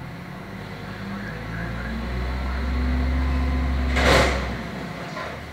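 Garbage truck engine revving up to drive its hydraulic lift, its low drone rising and holding. A loud crash about four seconds in as the raised container is dumped into the truck.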